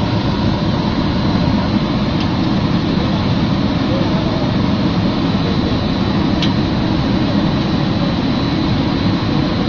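Rotary sawdust dryer running: a steady, loud industrial drone, strongest in the low range, with a faint steady high whine over it.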